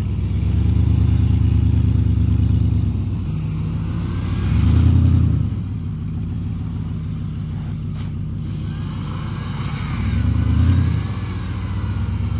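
Vehicle engines running under load during a tow-strap recovery of a pickup stuck in deep snow. There is a steady low running sound, and the engine revs up and back down twice, about five seconds in and again near eleven seconds.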